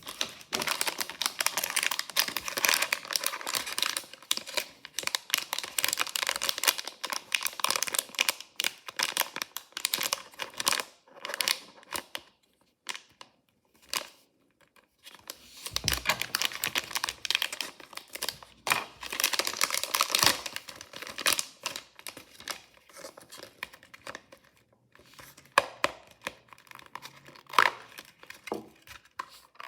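A mystery toy's wrapper being torn open and crinkled by hand, with dense crackling in two long bouts, then scattered crackles and clicks near the end.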